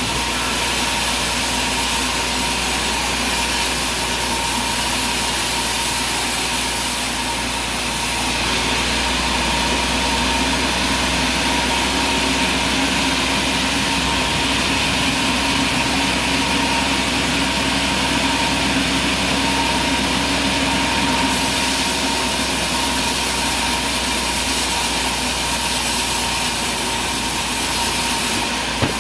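Sawmill machinery running steadily: a continuous mechanical drone with a fixed whine, its high hiss changing about eight seconds in and again about twenty-one seconds in.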